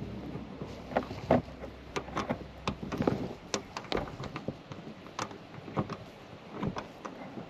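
Irregular clicks and knocks of a socket wrench and hand working the roof antenna's mounting nut from inside the vehicle, with rustling in between.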